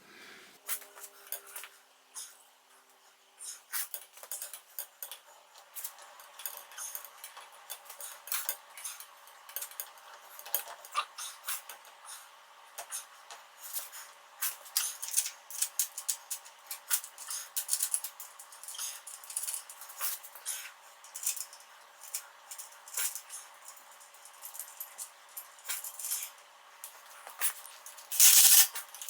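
Metal tools and parts clinking and clicking irregularly during hand assembly work on a motorcycle. Near the end comes a louder rubbing, hissing noise.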